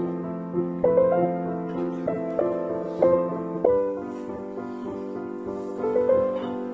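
Soft piano music: a slow melody with held chords, new notes struck about once a second.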